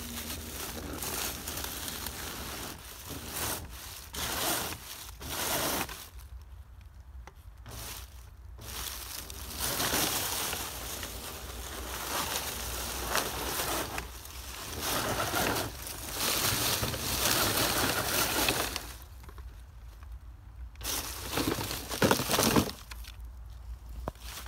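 Dry leaf litter crunching and rustling in stop-and-start bursts as a radio-controlled crawler truck (a TRX-4 clone) drives through it. There are a few sharper knocks near the end as the truck tips over onto its side.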